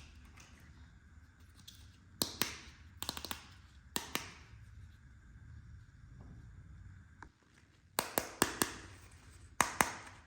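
Small hard plastic toy kitchen pieces clicking and tapping as they are handled and set down, in several quick clusters of sharp clicks.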